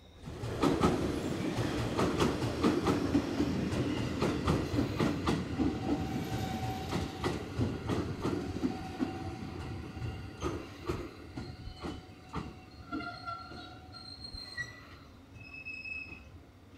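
Electric commuter train running on the rails, its wheels clacking over rail joints. It starts abruptly, and the quick run of clicks gradually thins out and fades.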